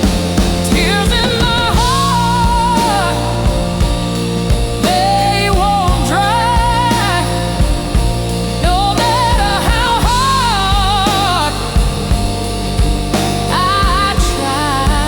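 Slow blues ballad music with no lyrics sung: a lead melody with bends and vibrato over bass and a steady drum beat.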